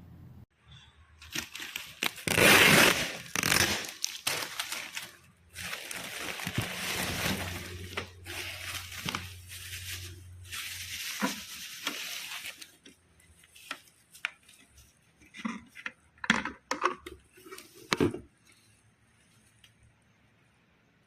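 Crinkling and rustling of packaging being handled, in two long stretches, followed by a series of sharp clicks and knocks of objects being set down and handled.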